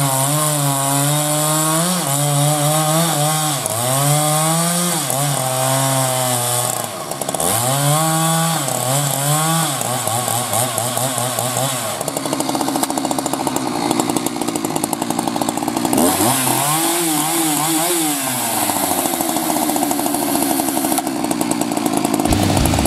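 Husqvarna 372XP two-stroke chainsaw cutting through a log, the engine pitch sagging under load in each cut and rising again as it frees up, several times over. Between cuts it runs steadily at a higher pitch.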